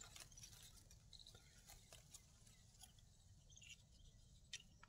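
Near silence, with faint scattered scratches and ticks of hands and a stick working loose soil around a mango seedling.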